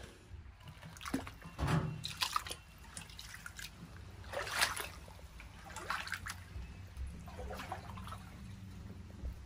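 Floodwater splashing and trickling on a flooded floor, with irregular short splashes a second or two apart over a faint steady low hum.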